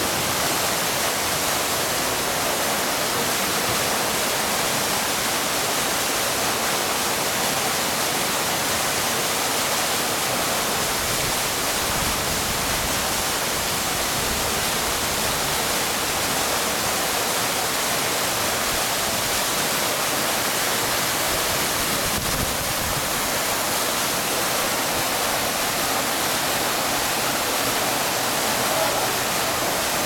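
Water from an artificial rock waterfall pouring steadily into a swimming pool: a constant rushing splash.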